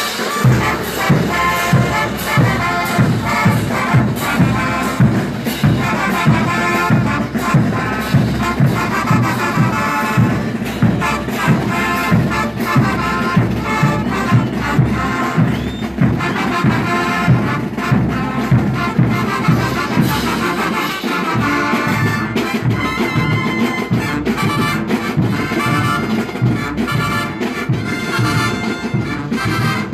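Mexican banda music: a brass band of trumpets and trombones playing over a steady low beat.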